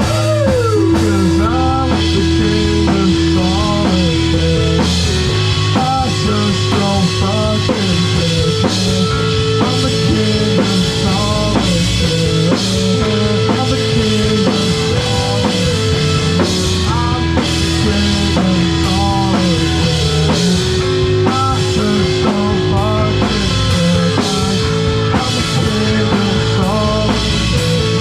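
Rock band playing live, with a drum kit keeping a steady beat under sustained notes and a wavering melodic line.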